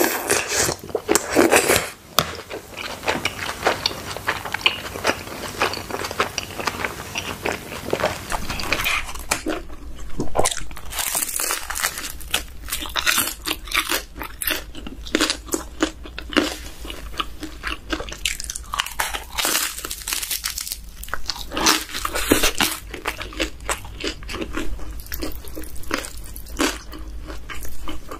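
A person chewing and biting dumplings close to the microphone: a dense run of short wet smacks, clicks and crunches. About eight seconds in, a steady low hum comes in underneath.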